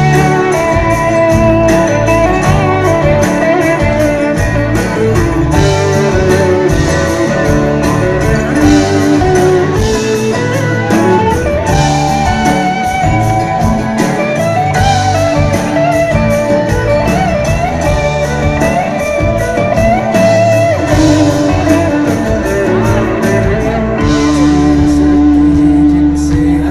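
Live rock band playing a loud instrumental passage: a guitar melody over a steady drum beat.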